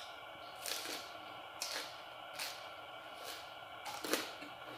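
A person chewing a crusty bánh mì with roast pork: about five crisp crunches, roughly a second apart.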